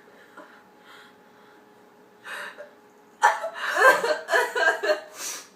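A short breathy gasp about two seconds in, then a young woman's laughter in several quick bursts that stop just before the end.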